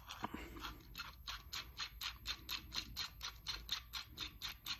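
Metal standoff barrel being screwed by hand onto its threaded stud in a wooden backboard: a quick, even run of light ticks, about five a second.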